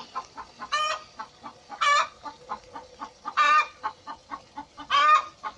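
Chickens clucking, with four short, louder calls spaced about a second or so apart and softer clucks between them.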